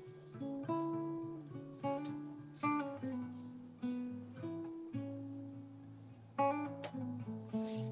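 Background acoustic guitar music: plucked notes and chords, each ringing out and fading before the next.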